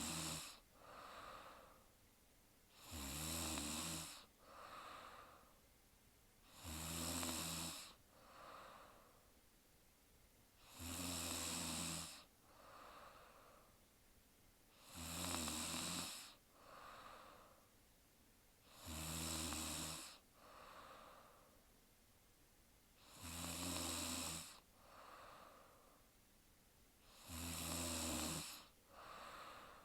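A sleeping woman snoring in a slow, regular rhythm, one snore about every four seconds, each followed by a quieter breath out.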